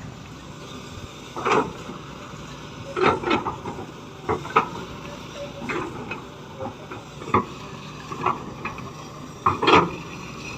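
Shantui excavator running steadily while digging, with irregular sharp clanks and knocks of the bucket and earth, the loudest about a second and a half in, around three seconds, and near the end.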